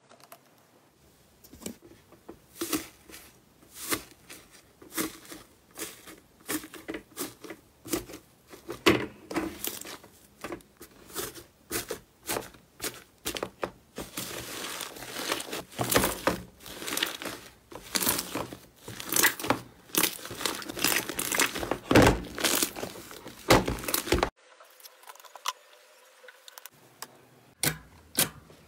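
Slime mixed with small foam beads being squeezed and pressed by hand: quick, irregular crackles and pops. The crackling stops abruptly about three-quarters of the way through, and after a quiet gap a few sticky pops return near the end.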